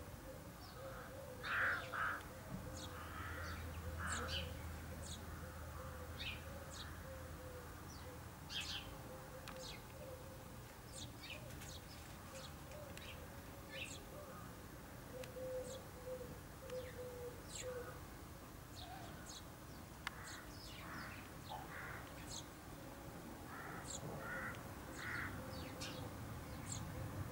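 House sparrows chirping, a male and his fledgling: many short, high chirps, with a few louder, harsher calls about two seconds in and again near the end.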